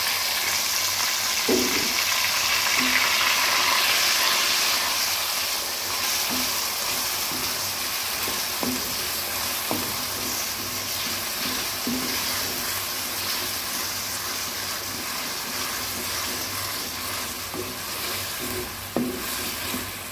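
Diced raw potatoes sizzling in hot oil in a metal wok. The sizzle starts suddenly as they go in and slowly eases, with a few knocks and scrapes of a spatula stirring them.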